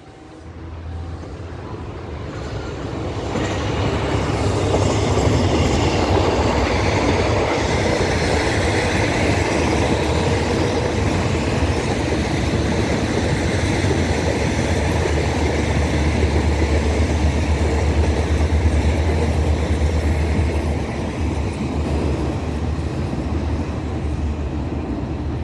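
Alstom 4407 diesel-electric locomotive and its passenger coaches passing close by. The train noise builds over the first few seconds and stays loud, with a steady low hum under the wheel noise, then eases off near the end as the train draws away.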